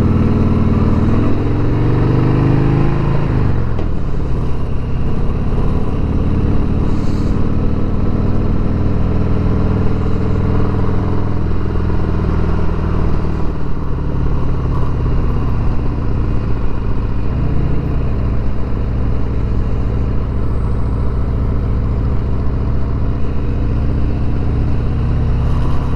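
2020 Harley-Davidson Sport Glide's Milwaukee-Eight V-twin running while riding, its pitch dropping a few seconds in, then holding fairly steady at cruising speed.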